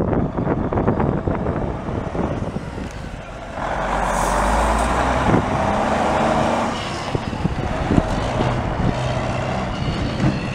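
Cummins N14 inline-six diesel of a 1999 Freightliner FLD semi tractor running as the truck drives by. It grows louder for about three seconds as the truck passes close, then settles back.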